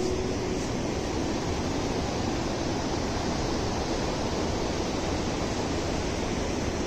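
A steady, even rushing noise that holds at one level throughout, with no distinct events in it.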